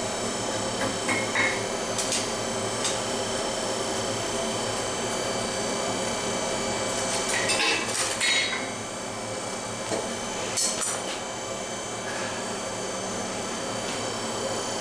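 Scattered hammer strikes on hot steel at an anvil, with a bright metallic ring: single taps in the first few seconds, a quick cluster of blows near the middle and a pair a little later, while the end of the knife is curled into a small loop. A steady hum runs underneath.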